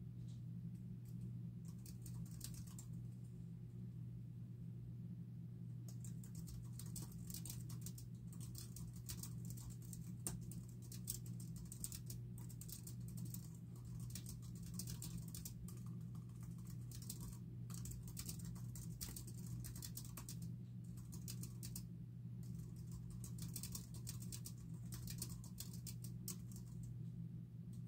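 Fast typing on a low-profile computer keyboard, the keys clicking in quick runs. A pause of about two seconds comes roughly three and a half seconds in, then steady typing resumes. A steady low hum runs underneath.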